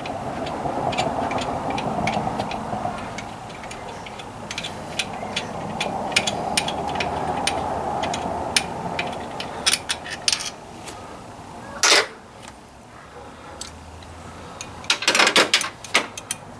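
A wrench working on the AC compressor's mounting bolts: scattered light metallic clicks and clinks, then a loud metal clank about twelve seconds in and a quick cluster of clanks near the end, over a steady background rumble.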